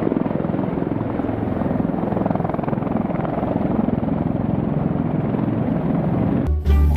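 Helicopter rotor noise: a steady, fast chopping of the blades that stops suddenly near the end.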